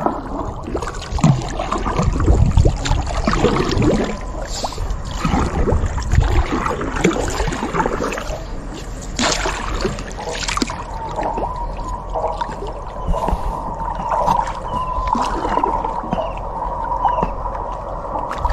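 Wooden country boat being paddled: paddle strokes splashing and water gurgling along the hull, with dull knocks in the first half and a wavering squeak through the second half.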